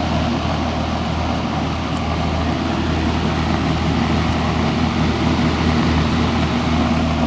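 Mid-1970s Lakewood 14-inch three-speed box fan running steadily on its highest speed: an even rush of air over the motor's steady hum.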